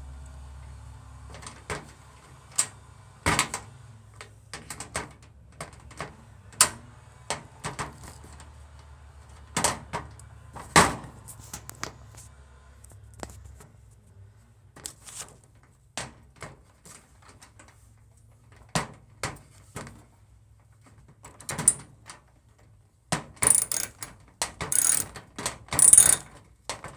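Irregular clicks and knocks of metal toolbox parts and hand tools being handled while bolts are fastened, with a burst of louder, rasping strokes near the end. A low hum underneath stops about halfway.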